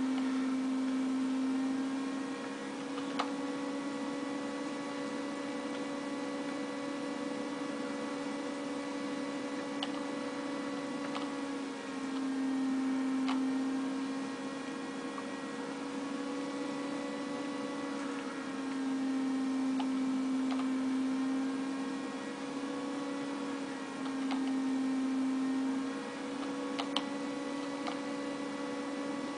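A steady electrical hum with a few overtones, its pitch and loudness wavering slightly, with a few faint clicks scattered through it.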